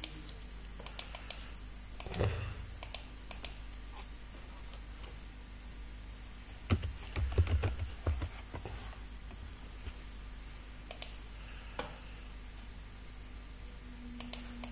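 Computer keyboard and mouse clicks during work at a computer: scattered sharp clicks, several close together in the first few seconds and single ones near the end, with a short run of duller knocks in the middle.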